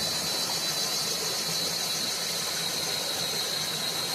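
Insects droning steadily in the jungle: one unbroken high-pitched buzz.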